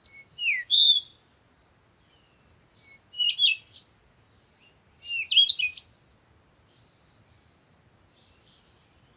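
Songbird singing three short phrases of quick, high, rising and falling notes, about a second each, with pauses between. Fainter, more distant chirps follow near the end.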